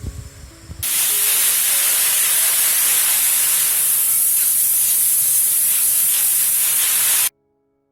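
Loud, steady hissing noise, strongest in the high treble, that starts suddenly about a second in and cuts off abruptly near the end.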